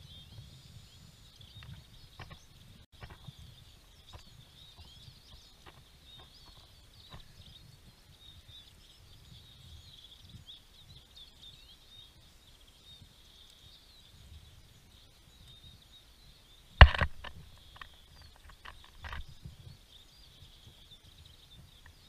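A chorus of small songbirds chirping and twittering continuously, over a low rumble. Scattered faint clicks run through it, with one loud sharp knock about seventeen seconds in and a few smaller ones after.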